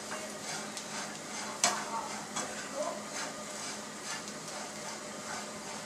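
Coarsely ground raw peanuts and onions sizzling in a nonstick frying pan while a long-handled spoon stirs and scrapes them as they roast. A few sharp clicks of the spoon against the pan, the loudest about one and a half seconds in.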